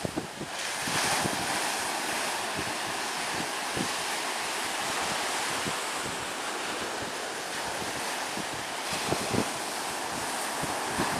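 Sea surf breaking and washing in a steady rush, with a few low thumps of wind buffeting the microphone.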